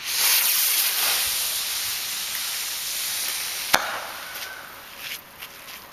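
Skybolt firework missile launching with a loud hiss that slowly fades as it climbs, then a single sharp bang as it bursts in the air, followed by a few faint crackles.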